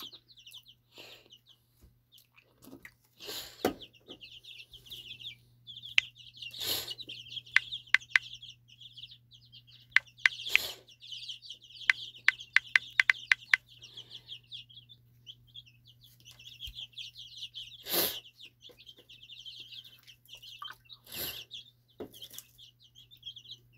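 Birds calling steadily in the background, with a faint low hum. Several runs of light, quick clicks come about a quarter and about halfway through, the taps of a phone's on-screen keyboard being typed on.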